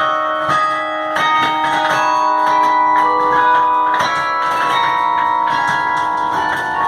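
Carillon bells playing a slow melody, a new note struck about every half second to a second, each ringing on and overlapping the next.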